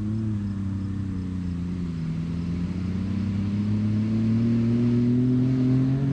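Jeep engine running under load, its note climbing slowly and steadily as the vehicle accelerates.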